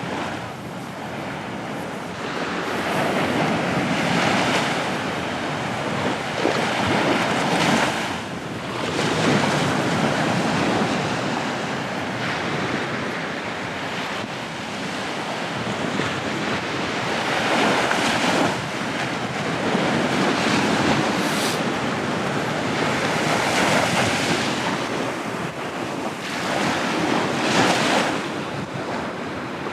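Sea waves breaking on the shore, the surf swelling and falling away in surges every few seconds, with wind buffeting the microphone.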